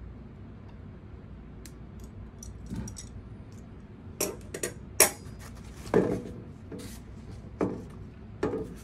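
Metal mounting plates, cutters and bagged hardware being handled on a tabletop: light clicks, then several sharp knocks and clinks in the second half, the loudest about five seconds in.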